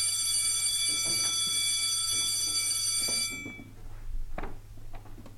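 School bell ringing with a steady, high electronic tone for about three seconds, then cutting off. It marks the end of the class period. Faint knocks and shuffling follow.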